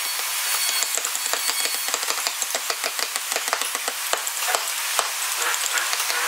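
Hand wood carving with steel chisels: a quick, irregular run of small taps and clicks as the blades bite and chip the wood, over a steady hiss.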